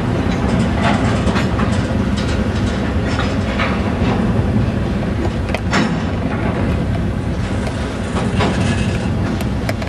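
Freight train's covered hopper cars rolling by, a steady loud rumble of steel wheels on rail with scattered sharp clicks and clanks from the wheels and couplings.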